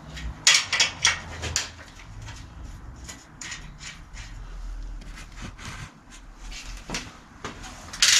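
Irregular metallic clicks and clanks of a 15 mm wrench working the rear axle nuts of a bicycle, with a quick cluster of strikes in the first couple of seconds, scattered clicks after, and a louder clank near the end.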